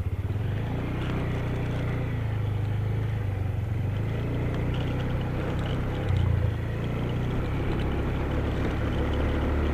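Yamaha Xeon 125 scooter's single-cylinder engine pulling away from idle and running steadily under way. There is a brief louder surge about six seconds in, and the engine gets slightly louder near the end.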